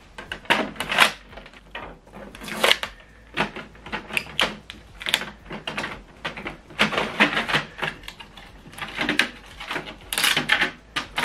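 Blue packing tape being pulled and peeled off the plastic paper tray of a new inkjet printer, with irregular clicks and rattles from the tray and the tape's rasping rip.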